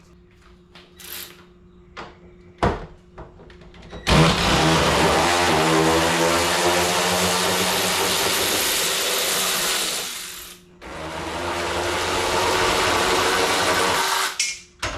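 A power driver spinning out the bolts of a jet ski's sponson: one long run of about six seconds, a short stop, then a second shorter run. A few small knocks of handling come before the first run.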